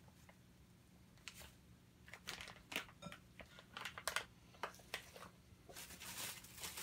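Plastic bags crinkling and rustling as breading mix is handled and poured from its packet into a clear plastic bag, in scattered light crackles with a denser rustle near the end.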